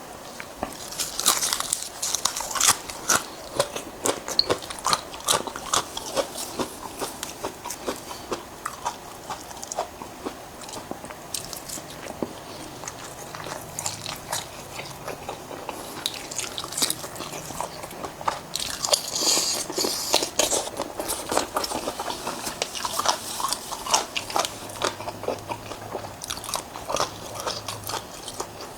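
A person eating close to the microphone: crunchy bites and wet chewing with irregular clicks and crackles.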